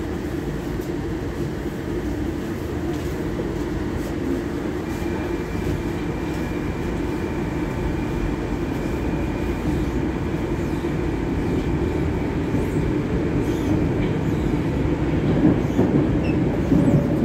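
Metro train pulling out of a station and gathering speed, heard from inside the car by the doors: steady running noise that grows louder as it goes, with a faint high whine joining about five seconds in.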